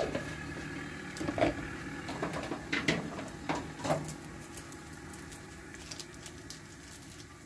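A few light clicks and taps of a cook's utensils at a crepe griddle, scattered through the first half, over a steady low hum.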